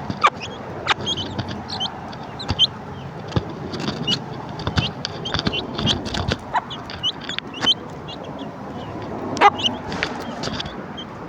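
A hen clucking to her chicks as they feed, with the chicks' short high peeps repeating throughout. Scattered sharp clicks stand out as the loudest moments, one about nine and a half seconds in.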